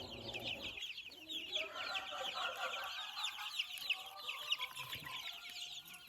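Incubator-hatched young chicks peeping: a dense flock of rapid, high, falling chirps overlapping continuously, with lower chicken calls now and then.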